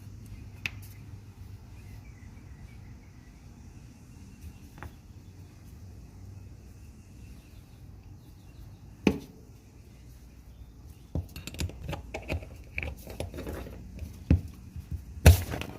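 Metal clicks and knocks from work on a seized adjustable wrench as it is being taken apart: one sharp knock about nine seconds in, then a quick run of clatter and knocks near the end, ending in one loud bang.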